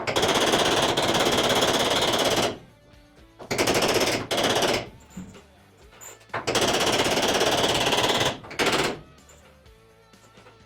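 Pneumatic hammering tool working sheet metal in four bursts of very rapid impacts, the first and third about two seconds long.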